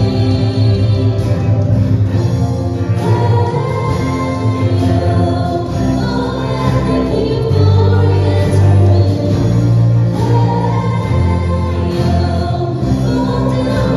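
A Christian worship song sung by several voices over instrumental accompaniment with held bass notes.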